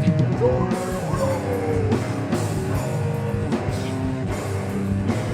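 Heavy metal band playing live: distorted electric guitars and bass over a drum kit, with a long sliding note held over the first couple of seconds.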